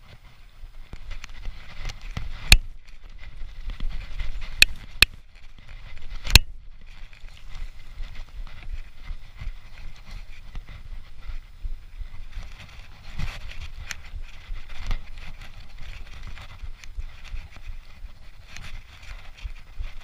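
Mountain bike ridden over a dirt trail, heard from a chest-mounted camera: tyres rolling on dirt with the bike rattling and a low rumble, and a few sharp knocks in the first several seconds.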